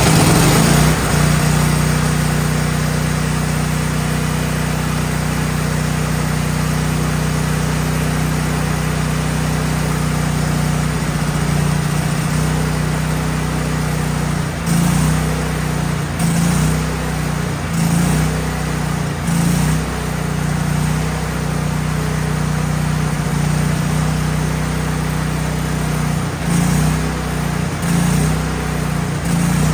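Gas engine of a Miller Bobcat 250 welder-generator running just after it finally starts, steady at first, then surging unevenly every second or two from about halfway through. The owner suspects a bad fuel pump.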